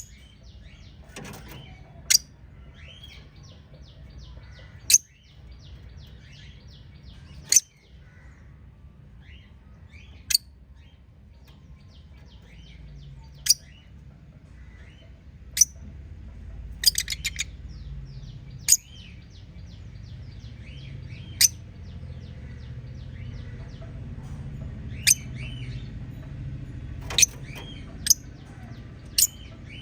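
A small flock of budgerigars chirping and chattering continuously. Sharp, loud single calls cut through every two to three seconds, with a short rapid trill about halfway through.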